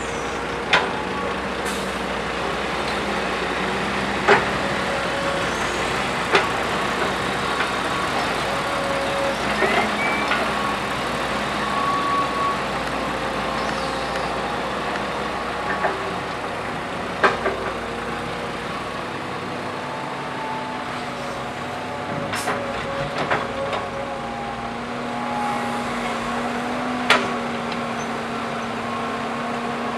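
Heavy diesel earth-moving machinery running steadily, with a handful of sharp knocks spread through.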